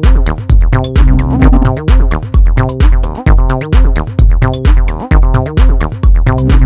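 Electronic background music: a steady kick drum about two beats a second under repeating synth chords.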